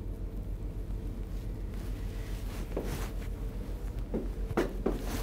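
Steady low room hum with a faint steady tone through it, and a few soft rustles and knocks from about halfway through as a person shifts about.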